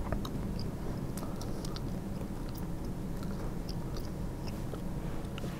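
Steady low hum of the room through the lectern microphone, with scattered small clicks and taps from a laptop being worked at the lectern.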